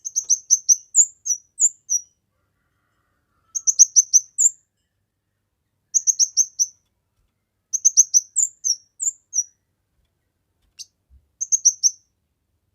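Kemade bird singing in quick bursts of high, rapid chirping notes. There are five phrases, each about one to two seconds long, separated by short pauses.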